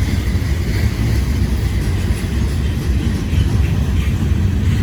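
Freight train cars, including covered steel-coil cars, rolling past: a steady low rumble and clatter of steel wheels on the rails.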